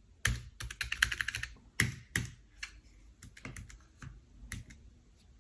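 Keystrokes on a Keychron K3 Version 2 low-profile mechanical keyboard with optical brown switches: irregular clicky presses, with a quick flurry about a second in, then scattered single keys.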